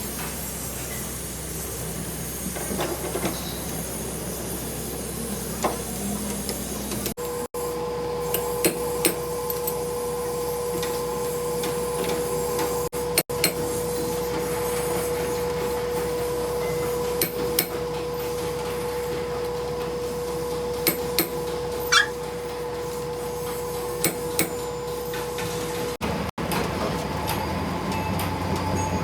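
Workshop machinery running with a steady hum, a steady mid-pitched tone through most of the middle, and scattered sharp metallic clicks and taps.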